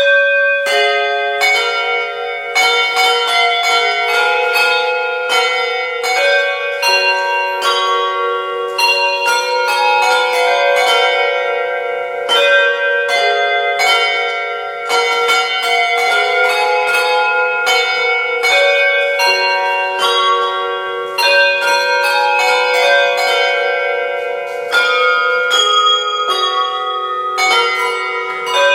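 Handbell choir playing a carol: tuned hand bells struck in turn, each note ringing on and overlapping the next, with several bells often sounding together.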